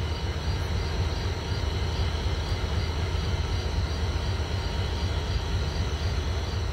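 Norfolk Southern diesel locomotives idling, a steady low rumble.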